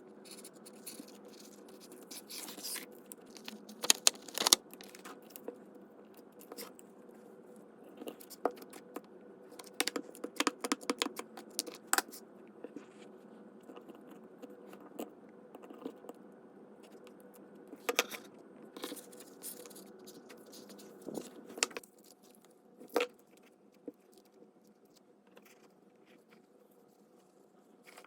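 Scattered small taps, clicks and rustles of paper and craft supplies being handled on a desk, coming in short clusters, over a faint steady hum that stops about two thirds of the way through.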